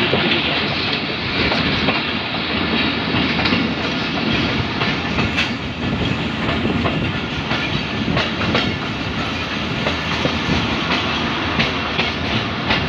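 Passenger train running along the track, heard from the carriage window: a steady rumble and rush with scattered clicks of the wheels over the rail joints.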